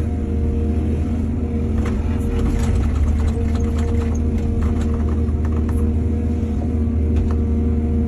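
Excavator's diesel engine running steadily, with scattered knocks and rattles from about two seconds in until near the end.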